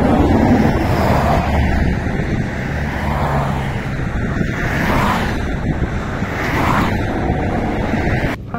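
Road traffic on a wide multi-lane road: a steady rush of vehicle noise that swells a few times as vehicles go past, cutting off suddenly just before the end.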